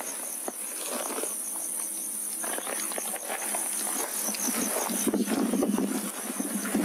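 Night insects chirping steadily in a high, shrill, pulsing trill, with a rustling crackle that grows louder about five seconds in.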